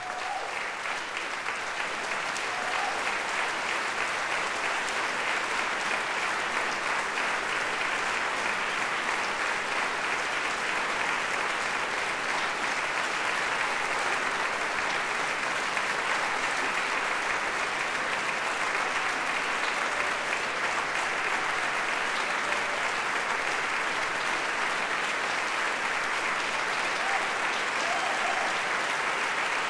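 A large audience applauding in a concert hall at the end of a performance. The clapping swells over the first couple of seconds and then holds steady and dense.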